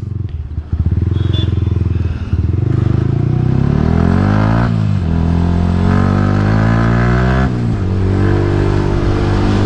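Motorcycle engine, lower at first, then pulling away under acceleration: the pitch climbs, drops sharply at an upshift about halfway through, climbs again, drops at a second upshift near the end, and settles into steady running, with wind noise over it.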